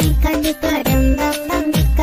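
Upbeat dance music with a heavy kick drum about every 0.8 seconds and a repeating melody.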